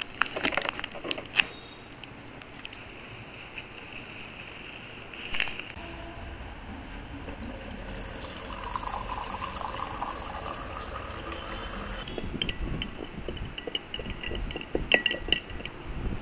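Plastic sachet crinkling as it is torn open. Later, a stream of water is poured into a glass over powdered drink mix, a steady rush lasting about four seconds. A few ringing glass clinks come near the end.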